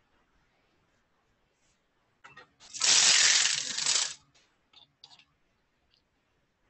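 Communion bread being broken by hand: one loud, noisy burst lasting about a second and a half, about three seconds in, with a few small clicks and rustles just before and after.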